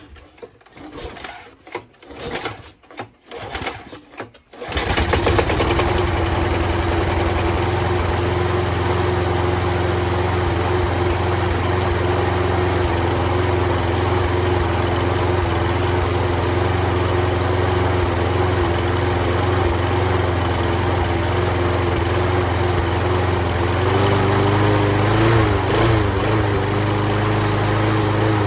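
Toro Recycler lawn mower's Briggs & Stratton single-cylinder engine pull-started, catching about five seconds in after some rattling, then running steadily with its clogged air filter removed, its speed wavering briefly near the end.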